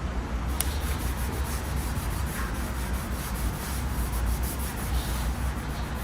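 Continuous rubbing and scrubbing on the motorcycle's gas tank while old gasket adhesive is being removed. A sharp click comes about half a second in.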